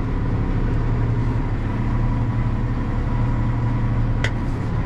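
Valtra tractor running steadily while pulling a round baler through swaths of grass, a constant low engine drone. One short sharp click sounds about four seconds in.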